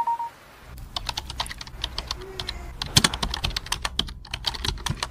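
Computer keyboard typing: a run of quick, irregular key clicks, beginning a little under a second in after a short beep at the very start.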